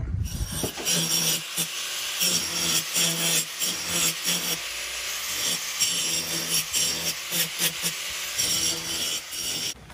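Angle grinder grinding the edges of a steel plate to round them off, the grinding noise swelling and dropping in uneven pulses as the disc is pressed on and worked along the edge. It stops just before the end.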